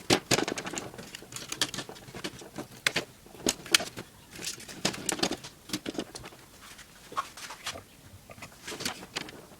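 Irregular clicks and knocks of plastic and metal parts as a replacement motherboard is fitted into an HP Pavilion G7 laptop's plastic chassis.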